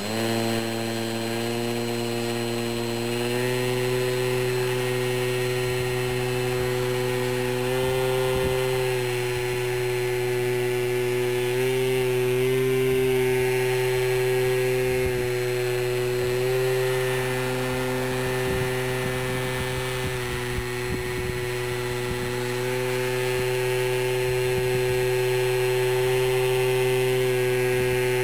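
Small electric model plane's motor and propeller holding it in a hover (prop hang), a steady buzzing whine. Its pitch steps up a few seconds in and wavers slightly with the pilot's throttle corrections.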